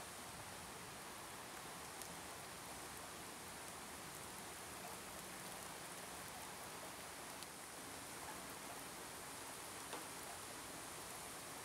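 Cauliflower florets sizzling softly in a frying pan as they are stirred, with a few light clicks of the spatula against the pan.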